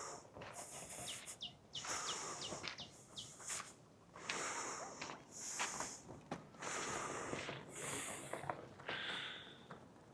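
Hard breathing of a walker climbing a trail, one hissy breath every second or so, with footsteps between. A bird calls a quick run of about six short falling notes about a second in.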